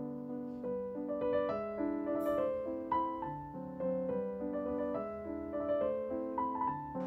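Background piano music: a steady stream of struck notes, several a second, over lower held notes.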